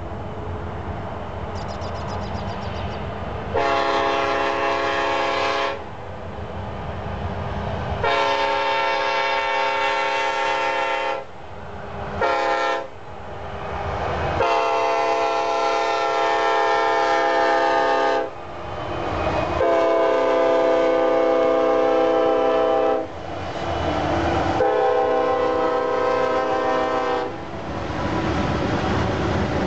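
Norfolk Southern freight train's locomotive air horn blowing a multi-note chord in the grade-crossing pattern (two long blasts, a short one, a long one), then two more long blasts, over the low rumble of the diesel locomotives. Near the end the freight cars roll past.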